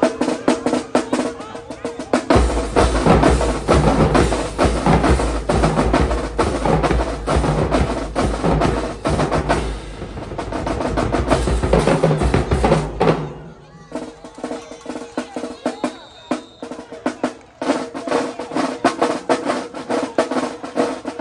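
High school marching band drumline playing a fast snare and bass drum cadence. From about two seconds in to about thirteen seconds the sound is fuller and heavier in the low end, then it drops back to a lighter drum pattern.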